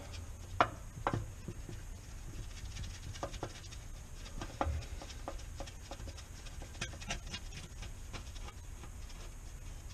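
Scattered light clicks and taps of nuts and bolts being started by hand on an oil pan's flange, with the sharpest click about half a second in.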